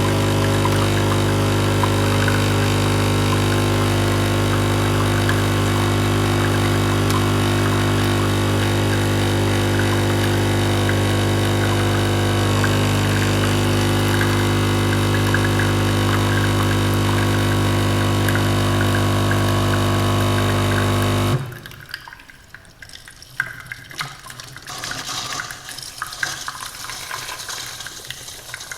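Automated coffee machine's pump running with a steady hum while liquid dispenses. The hum cuts off suddenly about three quarters of the way through, leaving quieter irregular crackling and hiss.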